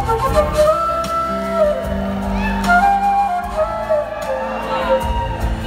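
Live band playing a slow number amplified in a large hall, a flute carrying the melody in long held notes over bass and drums, just after the last sung word.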